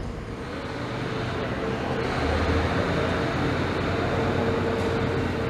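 Jet airliner engines running at idle as the aircraft taxis: a steady roar with a constant whine, growing a little louder about two seconds in.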